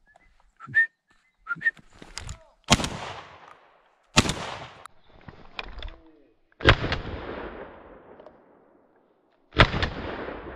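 Four shotgun shots fired at thrushes flying over, each sharp crack trailing off in a long echo through the trees; the shots come about a second and a half, two and a half and three seconds apart. A few light clicks and short chirps come before the first shot.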